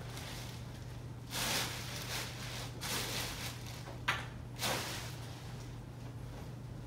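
Plastic packaging bag rustling and sliding under a heavy subwoofer cabinet as the cabinet is tilted from side to side to work it free. The sound comes in several swishes, with a sharper scrape about four seconds in.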